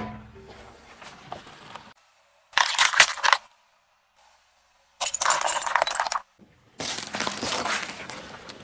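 Plastic toys cracking and crunching under a car tyre. A sharp crack comes right at the start. Then there are three separate bursts of crunching and crackling, each a second or two long, with silent gaps between them.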